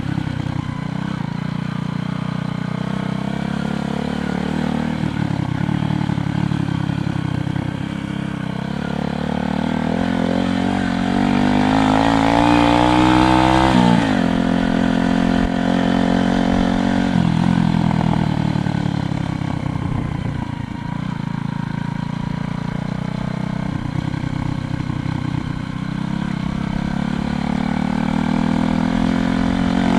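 Motorcycle engine running under way and pulling through the gears. Its pitch climbs steadily and drops sharply at a shift about halfway through, then builds again near the end.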